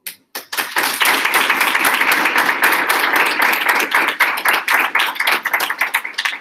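Audience applauding, building up within the first second and dying away near the end.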